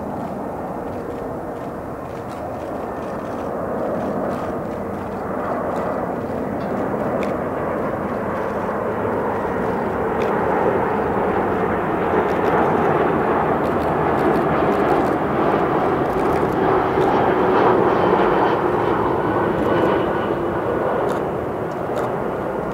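Airbus A340-300 airliner on final approach, its four CFM56-5C turbofans at approach power: a steady rushing jet noise that grows louder as the aircraft passes close by, with a thin high whine over the top, then eases off near the end.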